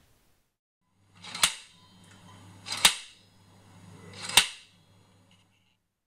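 Percussion whip cracking three times, about a second and a half apart, each a sharp crack.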